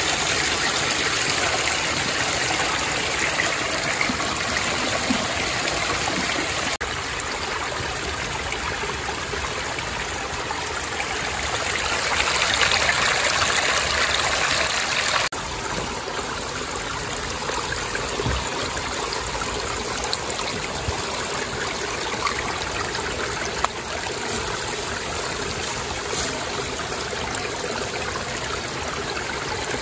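Steady rush and trickle of stream water flowing over rocks. The sound shifts abruptly twice, about a quarter of the way in and again near the middle.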